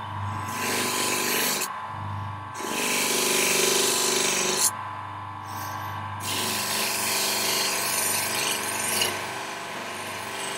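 Bench grinder motor running steadily while a steel knife blade is pressed against its paste-charged polishing wheel to polish out light scratches. Three passes of rushing, scraping rub ride over the motor hum, the longest near the end.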